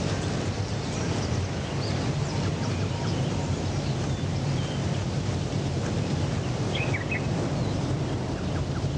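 Steady low outdoor rumble of wind-like field ambience, with a few faint high chirps near seven seconds in.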